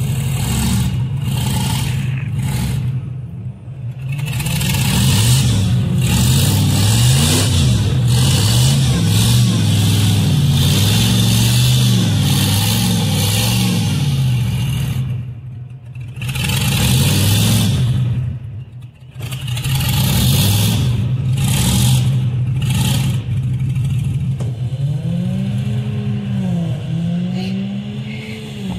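SUV engines revving hard under load in a vehicle tug of war, the pitch rising and falling over and over and easing off briefly a few times, with quick up-and-down revs near the end.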